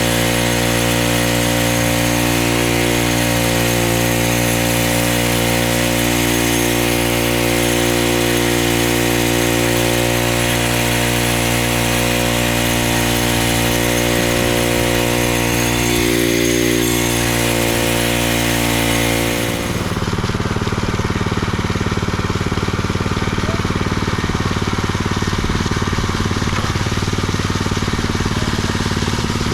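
Engine of concrete-finishing equipment running loud at a steady speed. About two-thirds of the way in, the sound switches abruptly to a rougher, duller engine sound.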